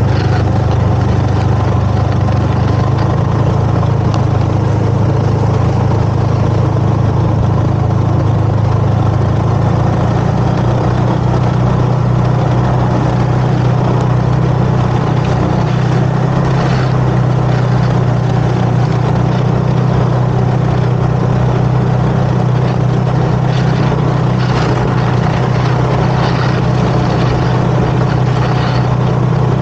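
Snowmobile engine running steadily at an even pitch, with a hiss of wind or track noise over it.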